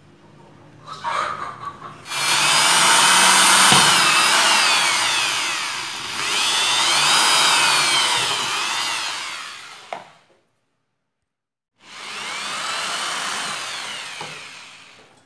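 Electric hand drill running and boring into plastic, its motor whine rising and falling in pitch as the speed changes. The drill stops about ten seconds in and starts again about two seconds later.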